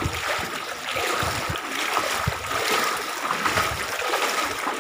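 Wading through floodwater: water sloshing and splashing unevenly around the legs with each step.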